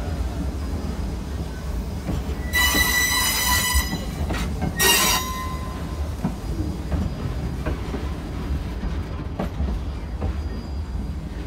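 Steam-hauled train rolling slowly into a station with a steady low rumble, as the wheels squeal high and piercing twice: once about two and a half seconds in for over a second, and again briefly about five seconds in. A few light clicks from the running gear follow.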